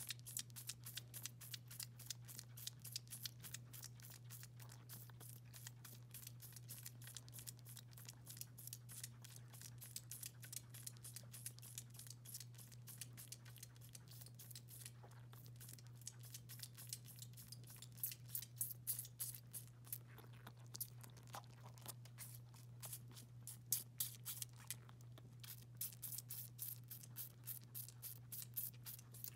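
Baby goat sucking on a bottle nipple: faint rhythmic sucking clicks and smacks, about three a second, over a steady low hum.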